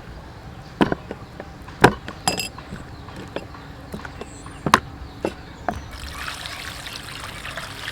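Kitchen utensils knocking and clinking several times, sharpest at about two seconds and just under five seconds in. From about six seconds in, a steady rush of water pouring.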